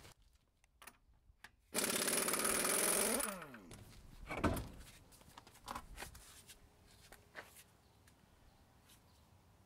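Impact wrench spinning a lug nut off a pickup's front wheel: a fast hammering whir for about a second and a half, then its motor winds down with a falling whine. About a second later comes a single thump as the wheel is pulled off the hub.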